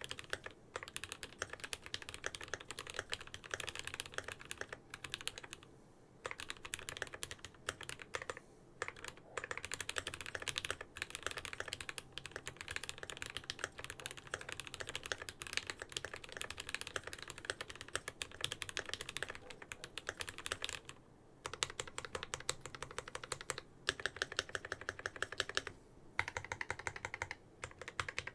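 Mechanical keyboard typed on in fast runs of keystrokes with short pauses: a GMMK Pro with Gateron CJ linear switches on an FR4 plate with stock foam and PBT keycaps. About twenty seconds in it moves from typing to pressing the modifier keys.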